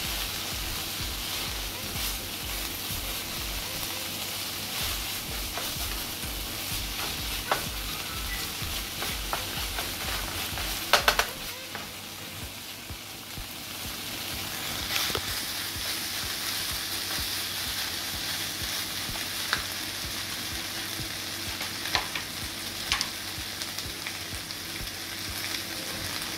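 Shredded chicken sizzling steadily in a hot frying pan while a wooden spatula stirs it, scraping and knocking against the pan now and then; the loudest knocks come in a quick cluster about eleven seconds in.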